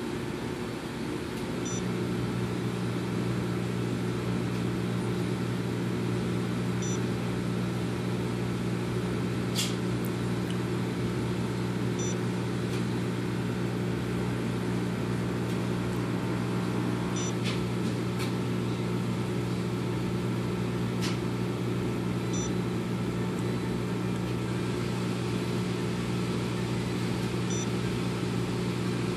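A steady low mechanical hum, like a fan or appliance motor, comes on about two seconds in and runs evenly. Faint short high beeps repeat about every five seconds, and a few sharp clicks fall here and there.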